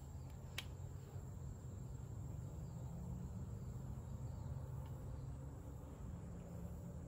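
Faint steady outdoor ambience: a high, thin insect-like trill over a low rumble, with one short click about half a second in.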